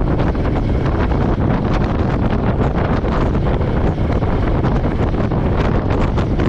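Royal Enfield Meteor 350's single-cylinder engine running steadily while riding, heavily overlaid with wind buffeting on the microphone.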